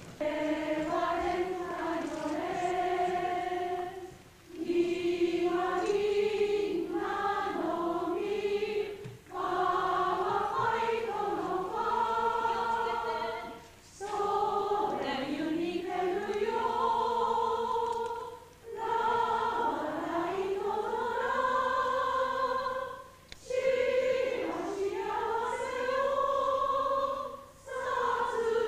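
A group of people singing a slow song together in long, held phrases, with short pauses for breath about every four to five seconds.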